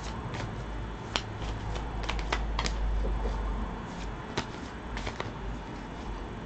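A deck of divination cards being shuffled and handled: a run of irregular light clicks and flicks, with a sharper click about a second in and another a little after four seconds.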